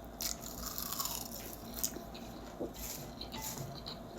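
Close-miked crunching and chewing of a mouthful of crispy stir-fried laver (gim bokkeum), a series of short, crackly crunches.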